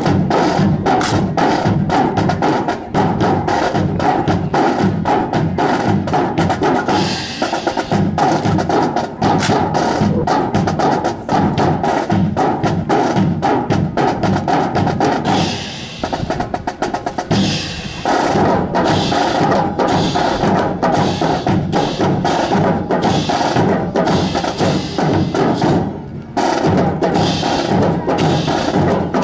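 A band playing a march, with snare and bass drums keeping a steady beat under sustained brass-like tones; it eases briefly twice before carrying on.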